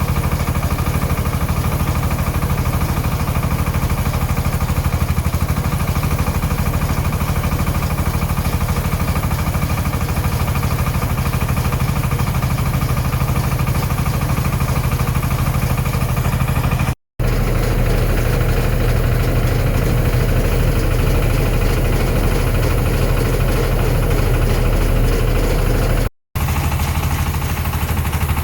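Engine of a tricycle silage feed mixer spreader running steadily with a rapid knocking beat. The sound cuts out briefly twice, and between the two breaks it is lower and heavier.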